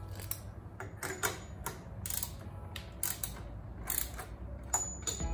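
Metal axle slider being worked onto a motorcycle's front axle by hand: a run of irregular clicks and creaks, with a short high squeak near the end.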